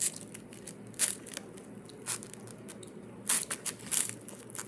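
Plastic snack wrapper crinkling in the hands, in about five short, sharp bursts roughly a second apart.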